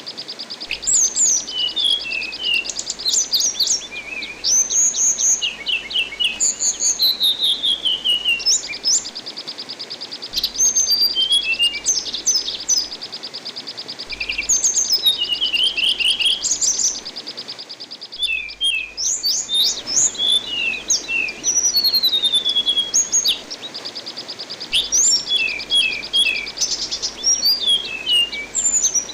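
Anis binbin thrush song: quick chirps and falling whistles, broken up by long, rapid, high trills held for several seconds at a time. Behind it runs a steady rush of running water.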